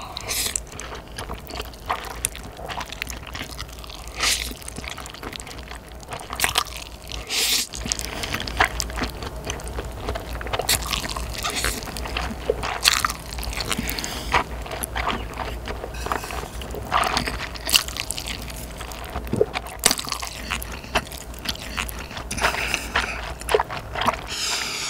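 A person slurping mouthfuls of wide, sauce-coated Carbo Buldak stir-fried noodles and chewing them wetly, with many short, sharp slurps and smacks.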